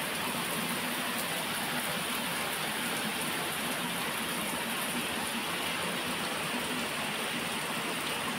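Heavy rain pouring steadily, an even hiss of rain on the street and rooftops.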